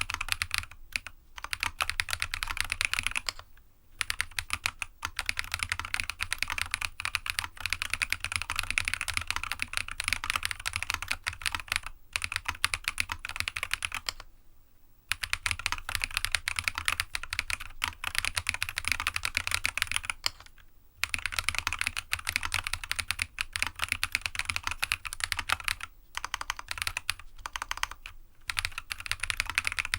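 Fast typing on a GEONWORKS F1-8X custom mechanical keyboard with Jade Black switches, a PC sandwich plate and PBT dye-sub keycaps: long runs of rapid key clacks with short pauses about 4, 15 and 21 seconds in, a sound likened to a typewriter.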